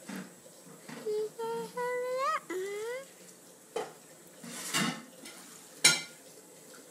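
A young girl whimpering while her loose baby tooth is pulled by hand: a string of short, pitched whines about a second in, several rising at the end. A breathy rush follows, then a single sharp knock, the loudest sound, near the end.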